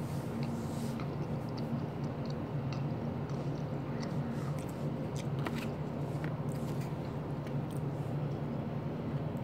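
Steady low hum, with scattered small clicks and crunches of someone chewing fried food close to the microphone.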